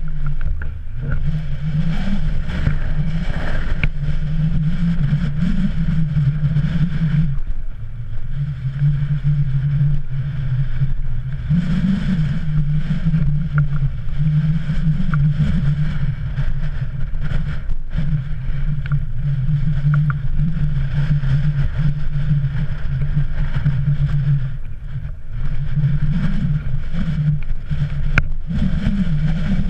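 Wind buffeting an action camera's microphone: a loud, steady low rumble that eases briefly a few times, with a few faint clicks.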